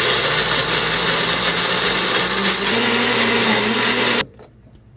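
Electric blender running, blending chopped okra with baking soda water. Its motor note steps up a little past halfway through, and it cuts off abruptly after about four seconds.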